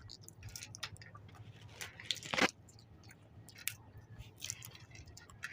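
People chewing and crunching raw peanuts, with scattered small crackles and one sharper crunch about two and a half seconds in.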